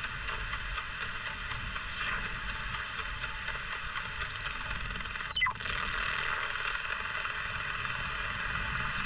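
CRT SS 9900 11-metre radio receiving in USB while tuning up the band: steady hiss of band noise from its speaker. About five and a half seconds in, a short whistle sweeps quickly down in pitch as a signal is tuned past.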